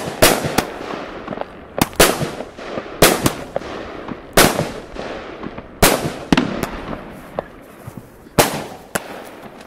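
Consumer aerial fireworks bursting overhead: a string of sharp bangs at uneven intervals, roughly one a second, with crackling and echoes in between.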